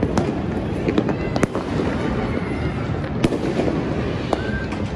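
Many fireworks and firecrackers going off at once: a continuous crackling din with several sharp bangs at irregular intervals, and a short whistle near the end.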